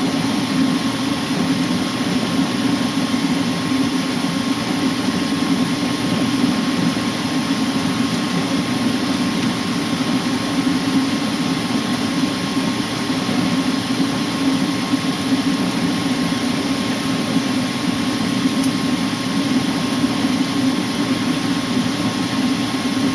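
Furnace running steadily with its burner flame lit: a constant rushing hum with a faint steady high tone, the burner staying on rather than cutting out.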